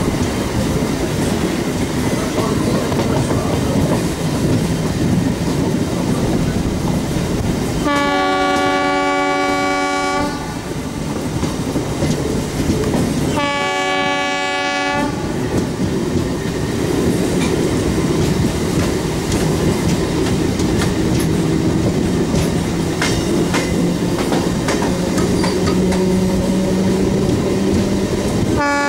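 MEMU train running, heard from an open coach door, with steady wheel-on-rail clatter. The horn sounds two long blasts of about two seconds each, roughly a third and a half of the way in, and a third blast starts right at the end. A low hum rises slowly in pitch through the second half.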